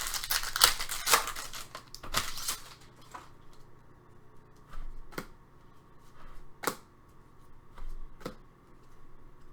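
Hockey trading cards being handled and flipped through: close rustling and clicking for the first two and a half seconds or so, then a few separate light clicks.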